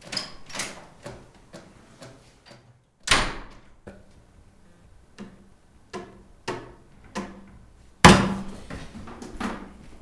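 Footsteps and light knocks on a hard floor, then a sharp bang about three seconds in and a louder bang about eight seconds in, the loudest sound here.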